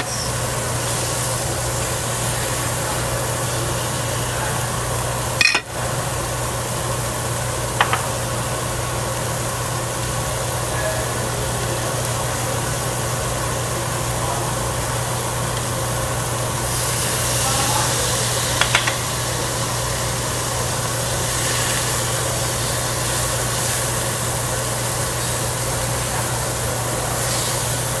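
Meat sizzling on a tabletop barbecue grill under the steady hum of an overhead exhaust hood, with a few light clicks of tongs and chopsticks on the grill. The sizzle swells for a couple of seconds about two-thirds of the way through.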